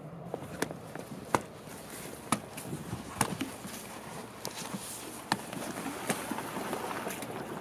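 Snap fasteners on a jet boat's fabric cover being popped loose by hand: a run of sharp, irregular snaps over rustling fabric.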